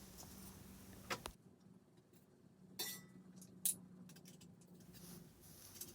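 A few faint, short clinks and knocks over a low steady hum: one about a second in, then two more around three and four seconds in.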